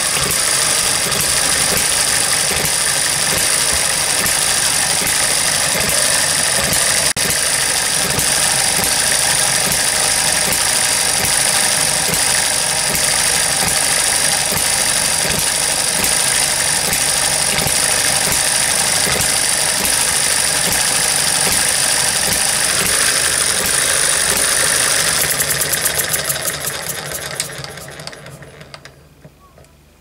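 Eachine ET1 single-cylinder gas model hit-and-miss engine running, a steady rapid mechanical clatter. It fades away over the last few seconds.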